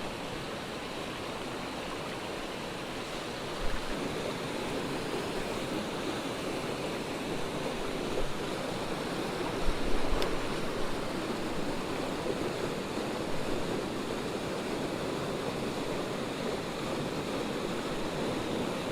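Swift mountain creek rushing steadily, with two brief knocks, about 4 and 10 seconds in.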